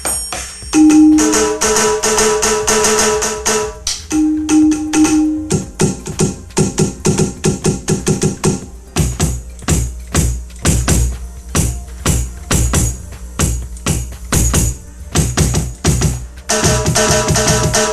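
AMW ED3 electronic drum module playing its eighteenth sound kit through an amplified loudspeaker: a quick rhythmic run of electronic drum and percussion hits, with sustained pitched tones sounding in stretches.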